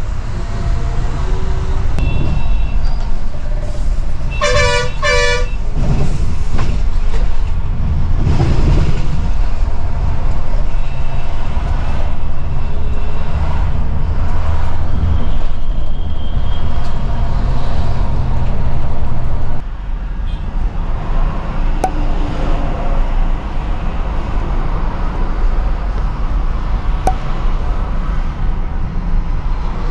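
Steady low rumble of a Scania multi-axle coach's engine and road noise heard from inside the cab. A vehicle horn sounds two short blasts about five seconds in. The rumble drops suddenly in level about twenty seconds in.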